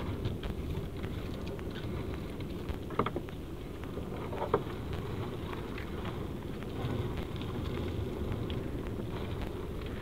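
Wind rumbling on the microphone while a wet fishing net is hauled into a wooden boat, with scattered small ticks and two sharper clicks about three and four and a half seconds in.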